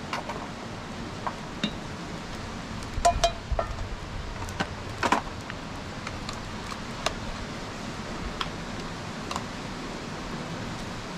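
Clinking of a ladle against a cooking pot and of bowls and spoons on a metal serving tray as soup is dished out. The clinks come singly and irregularly, with a louder ringing cluster about three seconds in, over a steady hiss.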